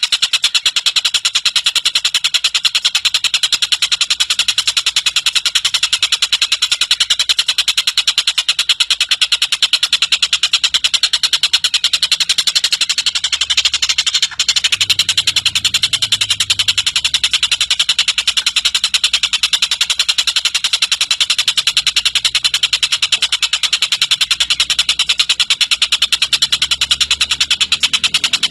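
Javan kingfisher (tengkek buto) giving a long, rapid cackling chatter: a fast, even run of sharp notes repeated without pause, with one momentary break about halfway.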